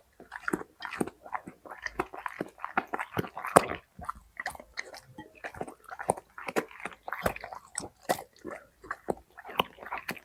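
A dog chewing a raw carrot: rapid, irregular crunches, several a second, with short pauses between bites.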